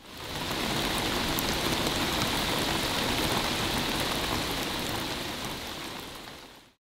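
Steady rain falling, with scattered drops tapping on hard surfaces. It fades in at the start and fades out shortly before the end.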